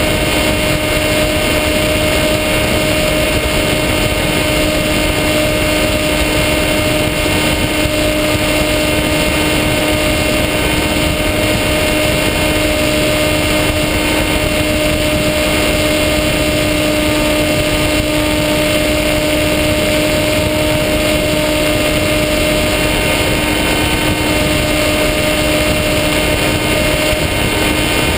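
Brushless electric motor and propeller of a Skywalker FPV model plane, heard from the onboard camera in flight: a loud, steady whine at constant pitch over a rush of wind noise.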